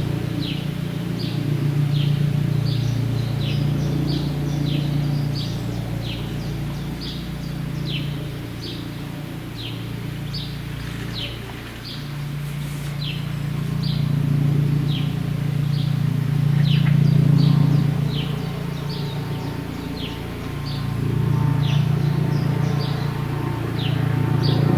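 Aerospatiale AS 365 Dauphin rescue helicopter running on the ground, a steady low hum that swells and fades every few seconds. A short, high, falling chirp repeats regularly, about every 0.7 seconds.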